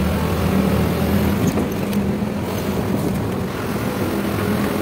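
A bus running along a paved road, heard from inside the cabin: a steady low engine hum over the rush of tyres and road noise.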